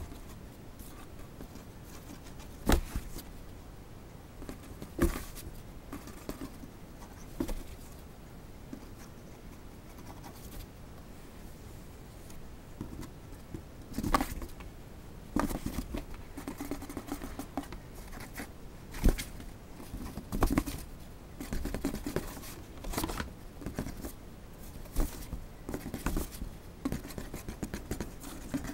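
Cardboard box being knocked and scratched. There are a few sharp, separate knocks in the first half. From about halfway there is a busier run of tapping and scratching as fingers work at the gap between the box flaps.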